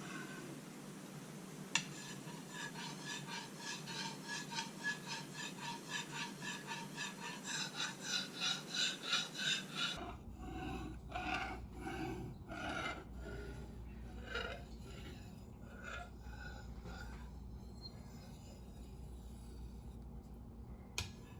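Steel knife blade stroked back and forth on a wet Japanese water stone: a rhythmic rasping scrape, a few strokes a second, growing louder. About halfway through the strokes turn slower and irregular, then die away.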